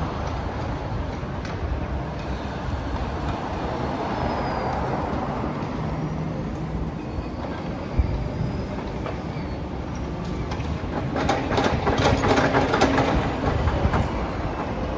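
Steady low mechanical rumble, with a louder burst of rattling clatter about eleven seconds in that lasts a couple of seconds.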